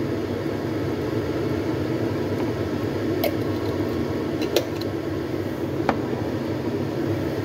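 Steady mechanical hum of room machinery, with three short sharp clicks a little over a second apart, about halfway through, as a jar and spoon are handled over a mixing bowl.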